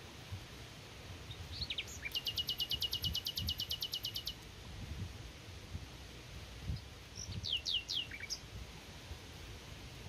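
A songbird singing: a few quick down-slurred notes, then a fast, even trill of about nine notes a second lasting about two seconds, and a few more down-slurred notes some three seconds later. Soft low knocks and rustles run underneath.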